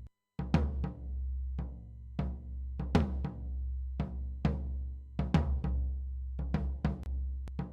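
Mixed drum kit playback with regular kick and snare hits over a steady low bass. It cuts out for a moment right at the start, then starts again, with quicker hits toward the end.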